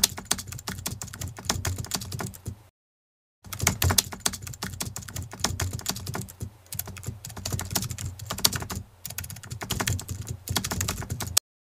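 Computer keyboard typing: quick, irregular key clicks, with a short pause about three seconds in, stopping just before the end.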